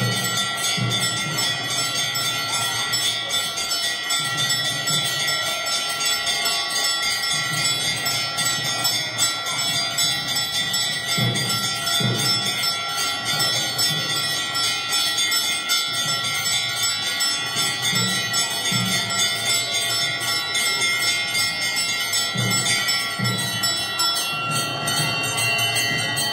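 Temple bells ringing without pause during an aarti, many ringing tones layered together, with irregular low beats underneath.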